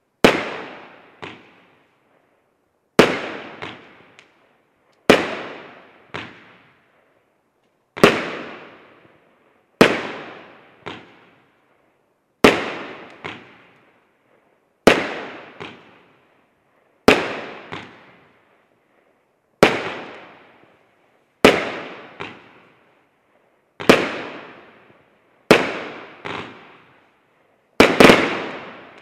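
A 20-shot firework battery (Profi Line 8.9) firing golden brocade palm shells with red tips one after another. There are loud bangs about every two seconds, each dying away over about a second, and most are followed by a smaller bang about a second later.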